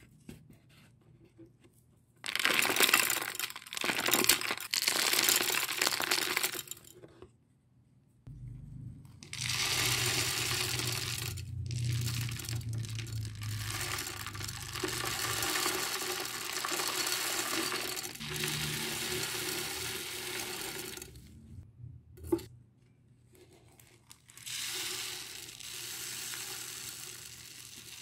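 Small pellets of base fertilizer and aquarium soil granules poured into a small glass tank, rattling onto the glass bottom and stones. There are a few separate pours, the longest lasting about twelve seconds, with one sharp knock about two-thirds of the way through.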